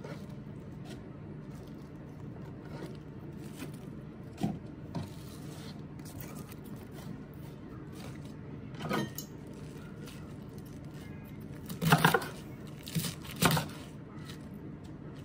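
Chef's knife cutting through Chinese cabbage against a cutting board, with a few soft knocks early and a cluster of louder knocks about twelve to fourteen seconds in. Cabbage leaves are pulled apart and handled in between. A low steady hum runs underneath.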